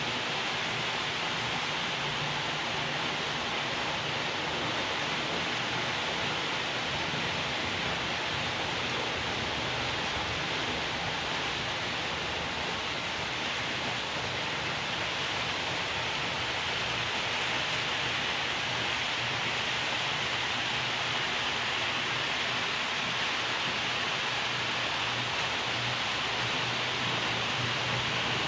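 Model trains running on the layout: the steady rolling hiss of wheels on the rails with a low motor hum, getting slightly louder about two-thirds of the way through as a long train of freight wagons passes.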